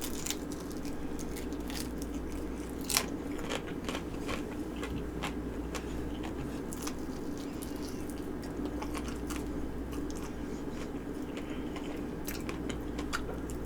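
A person biting and chewing chicken wings close to the microphone, with many small clicks and one sharper click about three seconds in, over a steady low hum.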